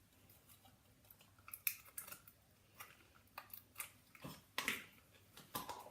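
Smiggle Cosmic Goo putty with small beads in it being squeezed and poked by hand, giving irregular crunchy crackles and pops.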